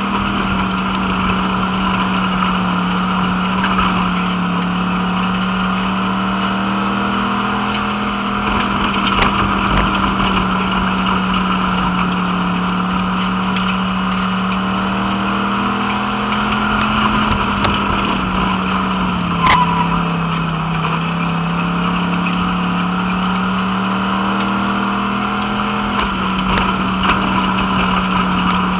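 Pure Stock dirt-track race car's engine running hard under racing load, heard from inside the cockpit, its pitch falling and rising in slow waves as the throttle comes off and goes back on. Scattered sharp ticks, with one louder knock about two-thirds of the way through.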